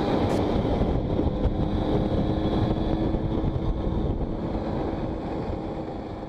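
Simson two-stroke motorcycle engine running while riding, with wind noise on the microphone, slowly fading out over the last few seconds.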